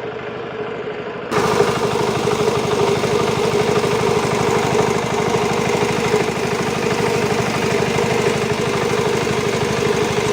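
Engine-driven paddy threshing machine running steadily: a fast, even engine beat under a constant hum. It comes in abruptly about a second in, after a quieter hum.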